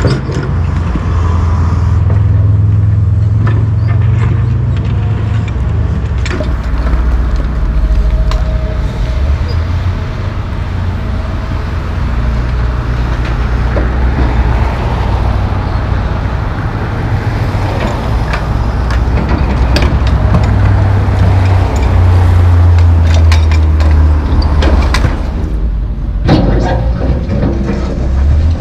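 Heavy diesel engines of John Deere track excavators running under load while digging concrete debris, the engine note rising and falling as the machines work, with occasional clanks.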